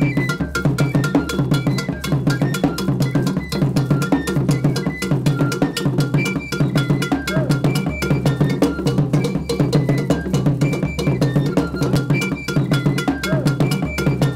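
Percussion-driven music led by a rapid, steady cowbell-like metal bell pattern, over a repeating bass line and a short high melody.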